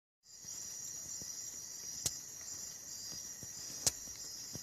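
A steady, high-pitched chorus of night insects calling, with two sharp clicks about two and four seconds in.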